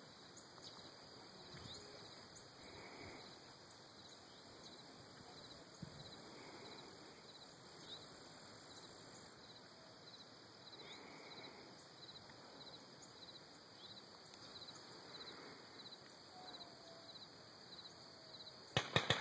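Quiet open-field evening ambience: insects chirping in short, evenly repeated pulses, with a few faint thumps. Near the end a quick cluster of sharp cracks.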